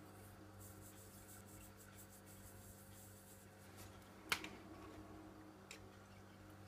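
Near silence: faint steady room hum with light handling rustle, and a single sharp click a little past four seconds in, followed by two smaller ticks.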